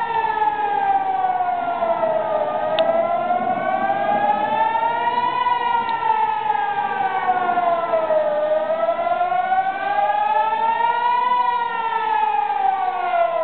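Civil defense siren wailing a rocket-attack warning, its pitch slowly falling and rising about once every six seconds.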